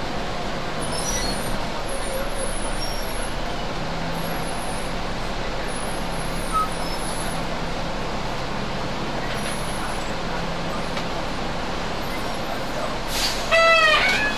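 Steady running noise of buses idling in a bus terminus. About thirteen seconds in comes a loud short hiss with a falling squeal, like a bus's air brake releasing.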